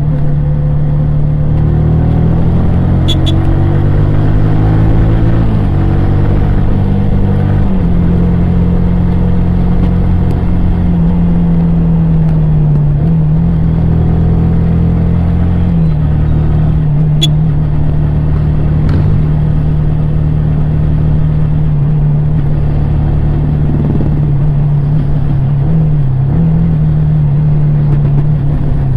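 Yamaha R15 V3's 155 cc single-cylinder engine and exhaust running under way, its pitch shifting up and down several times in the first eight seconds, then holding mostly steady with small dips. A few brief sharp clicks stand out above it.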